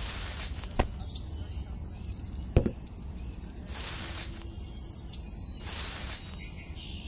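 Chilli plants rustling and stems snapping as ripe red chillies are picked by hand: a few short rustles and two sharp snaps.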